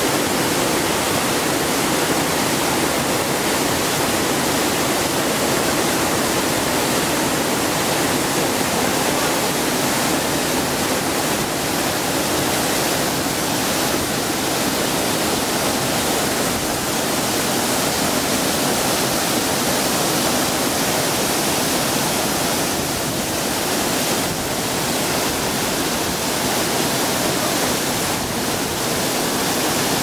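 Waterfall cascading over rocks: a steady, loud rush of falling and splashing water.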